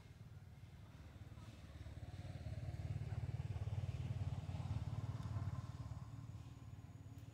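A motor vehicle passing: a low engine hum that swells over a few seconds and then fades away.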